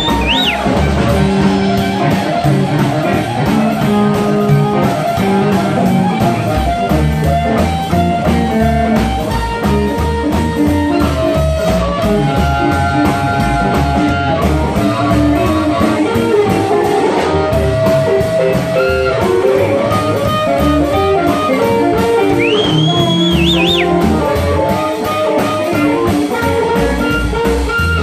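Live blues band playing an instrumental passage: amplified harmonica cupped to a microphone playing held lead notes over electric guitar, upright bass and drums. Two brief high sliding squeals come near the start and again about two-thirds through.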